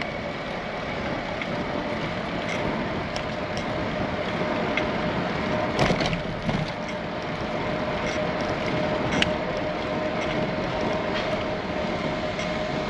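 Bicycle riding: a steady rolling noise with a faint continuous hum, and scattered small clicks and rattles. The sharpest knocks come about six and nine seconds in.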